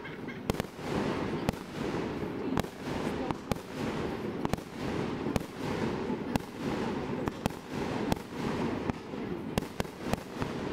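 Fireworks display: aerial shells bursting in a string of sharp bangs, about one a second, over a steady low rumble.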